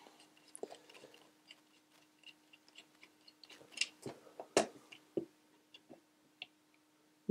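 Faint scattered clicks and ticks of a small screwdriver backing a screw out of a plastic clamp-meter housing and the plastic jaw parts being handled, with a few sharper clicks about four to five seconds in.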